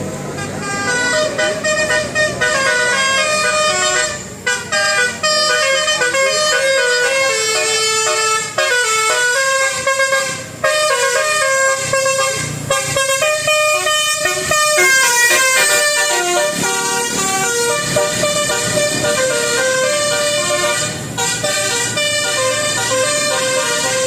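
Vehicle horns sounding a continuous run of held pitched notes that step up and down in pitch, like a tune.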